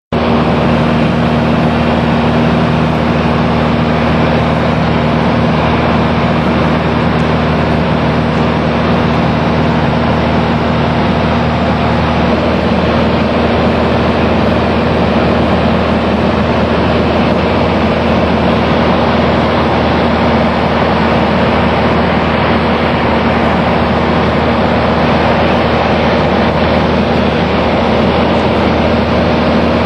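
Loud, steady drone of an aircraft's engine and airflow heard inside the cabin, holding a constant pitch and level with a low hum beneath the rushing noise.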